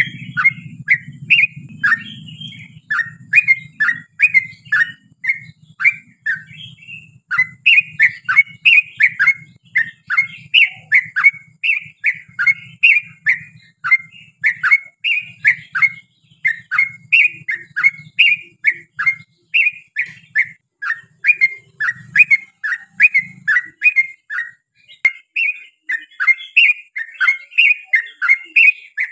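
Yellow-vented bulbul singing a long, unbroken run of quick bubbly chirping notes, several a second. A low hum sits underneath and fades out about two-thirds of the way through.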